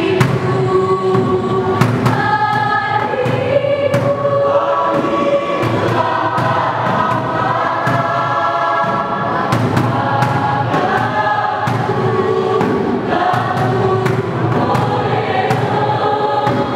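A high-school choir singing in several voice parts, holding long chords that shift every second or two, with frequent sharp taps over the singing.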